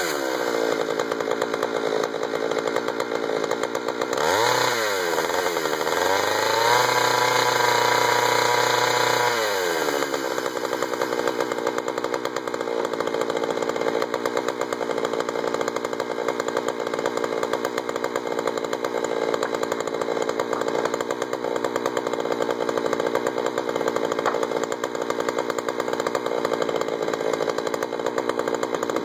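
Jonsered 2091 93 cc two-stroke chainsaw on a mini mill dropping off full throttle at the end of a cut in pine. It is blipped once about four seconds in and held at raised revs for a few seconds, then settles to a steady idle.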